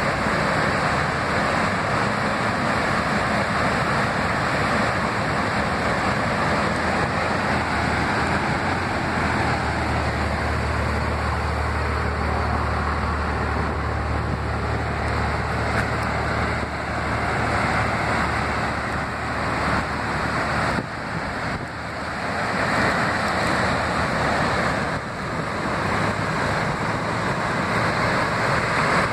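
Steady rushing of a flooded, fast-flowing river swollen by heavy rain. A low rumble joins in from about nine seconds in and fades out about eight seconds later.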